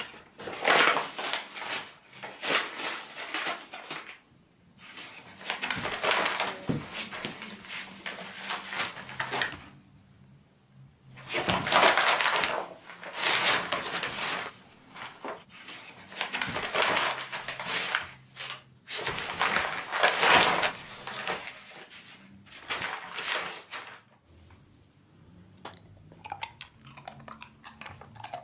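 Brown paper bags crackling and tearing as a beagle rips and chews them, in bursts of a few seconds with short pauses between. Near the end the rustling dies down to a few faint crinkles and clicks.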